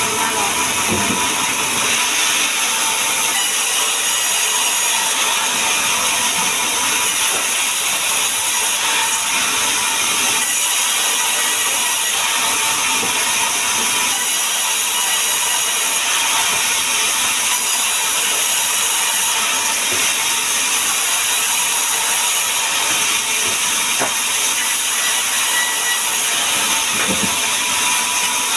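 Power woodworking machine running steadily while working sengon wood: an even, hissing machine noise with a faint constant whine, unchanged throughout.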